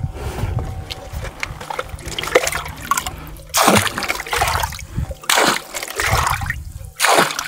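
Water being bailed by hand out of a leaking wooden boat: scoops of water are splashed out of the hull over and over, the loudest about every second and a half in the second half. The water has come in through holes pressed open in the planking.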